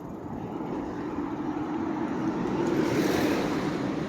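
A road vehicle passing close by on a city street, its engine and tyre noise swelling to a peak about three seconds in and then fading.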